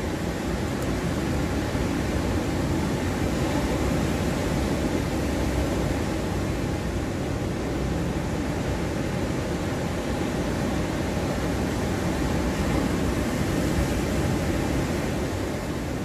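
Rough ocean surf breaking on a sandy beach: a steady, continuous rush of waves, heaviest in the low rumble, with no single breaker standing out.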